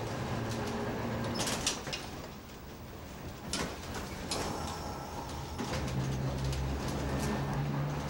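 PRT/PTC nearside streetcar 6618 riding on its track, heard from inside the car: running rumble with knocks and rattles from the car body and wheels. A low hum from the car comes up about six seconds in.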